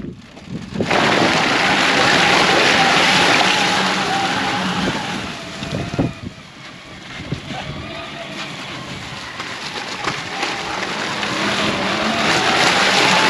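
Intimidator Classic electric UTV driving through mud: a steady electric motor whine over a rush of tyre and wind noise. It is loud for the first few seconds, eases off in the middle, and builds again near the end.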